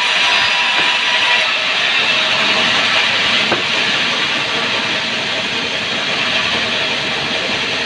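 Sawmill saw cutting through a sengon log, a steady loud hiss of blade in wood over the machine's running.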